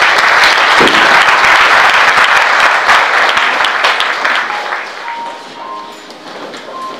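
Congregation clapping at the close of a sermon, a dense crackle of many hands. It is loud for the first few seconds, then dies away over the last few.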